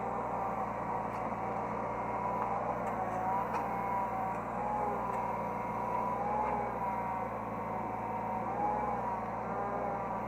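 Hydraulic excavator's diesel engine running steadily, heard from the operator's cab, with whining tones that rise and fall every second or two as the machine works.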